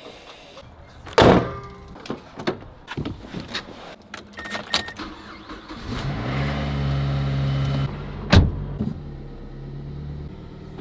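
A car door shuts, followed by clicks and a brief beep, then the Mazdaspeed3's turbocharged 2.3-litre four-cylinder starts about six seconds in, runs at a raised idle for a couple of seconds and settles to a steady idle. A second door shuts just after the engine settles.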